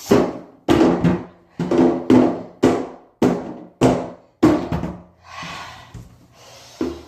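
Repeated heavy thuds in a bathtub, about one a second, each with a short hollow ring, from someone stomping on a juice box to burst it. Near the end the thuds stop for a second or so of hiss, then one more thud.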